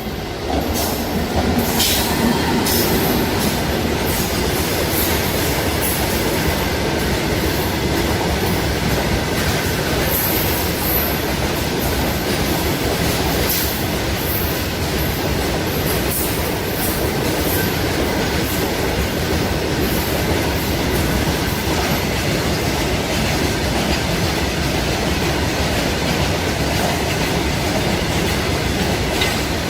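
Goods train wagons passing close at speed. A loud, steady rumble and clatter of wheels on the track begins abruptly and holds throughout, with sharp squeals and clicks from the wheels, mostly in the first half.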